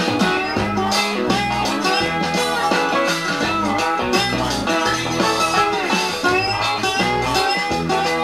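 Instrumental break of a blues-rock song played from a vinyl LP: guitar-led, with some notes bending in pitch, over a steady bass line.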